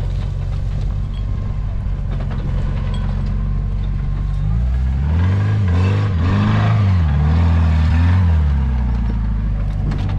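Nissan Patrol Y61 off-road truck's engine running low and steady in gear while it holds the vehicle back down a steep loose slope, then revving up about halfway through and dropping back near the end.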